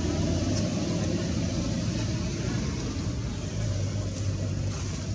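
A motor vehicle's engine running, a steady low rumble with a hum, easing off slightly toward the end.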